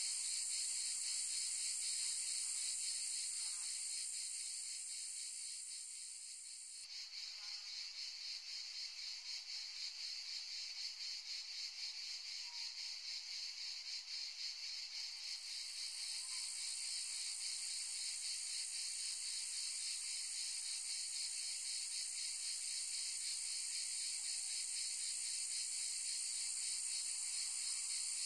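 A steady, high-pitched chorus of insects buzzing. About seven seconds in it dips and turns choppier with a fast pulsing, then fills back out to an even buzz by about sixteen seconds.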